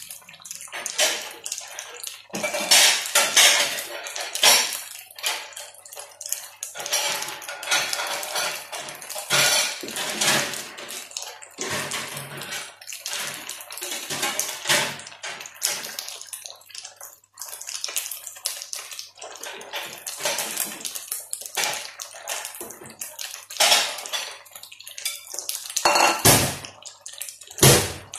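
Pots, dishes and utensils clattering irregularly, with splashing water.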